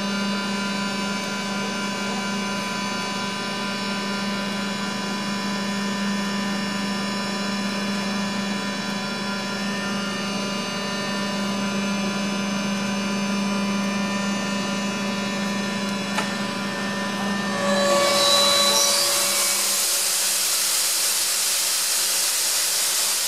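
Atlas Copco ZR300 industrial air compressor running unloaded with a steady hum of many tones. About 18 seconds in it switches to load: the hum gives way to a rushing hiss of air as it starts compressing.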